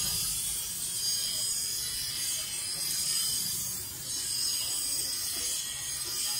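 Bench grinder's abrasive wheel grinding a steel knife blade: a steady high-pitched hiss and scrape over the low hum of the motor, easing briefly about four seconds in.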